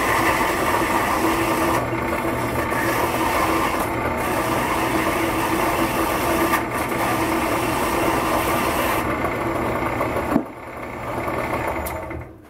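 Vertical-horizontal metal-cutting bandsaw, set at its lowest speed, cutting through a steel wrench with the blade chattering against the work. A sharp click about ten seconds in, after which the cutting noise drops, and the saw falls quiet near the end.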